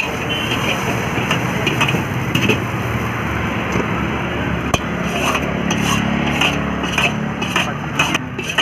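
Steel ladle scraping and clinking against a large iron kadai while vegetables and Manchurian balls are stir-fried, over a steady background hiss. One sharper knock comes about halfway through, with lighter clinks toward the end.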